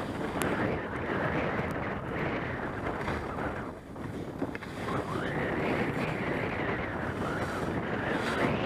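Wind rushing over the microphone and skis scraping across packed snow during a downhill run. The rush swells and eases with the turns and drops briefly about four seconds in.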